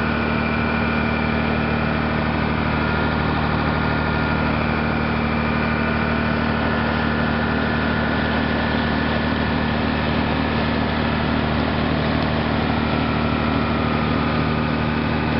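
A motor boat's engine running steadily at cruising speed, a constant low drone with a rushing hiss of churned water and wake over it.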